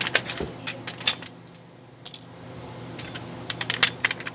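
Metal clinking of a wrench working the nuts on the leaf-spring U-bolts under the rear axle, as they are tightened: irregular sharp clinks in a quick cluster at the start and again about three and a half seconds in.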